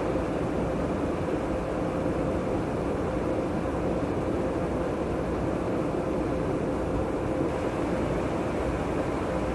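Steady in-flight cabin noise inside a KC-135 Stratotanker: an even rush of engine and airflow noise with a constant hum running through it.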